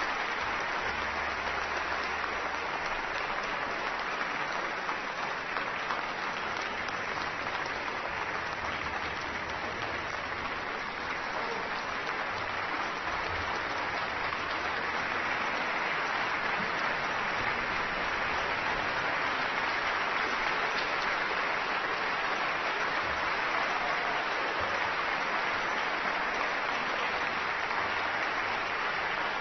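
Concert-hall audience applauding steadily, the clapping growing a little louder about halfway through.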